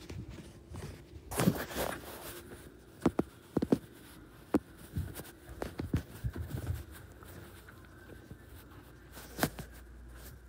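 Irregular knocks, taps and rustles of a phone being handled and carried by someone walking, with footsteps. The strongest knocks and rubbing come about one and a half seconds in, a cluster follows a second later, and a last sharp tap comes near the end.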